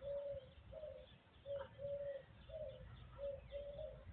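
Faint bird calls: a run of short, low, even-pitched notes about twice a second, with fainter higher chirps behind them.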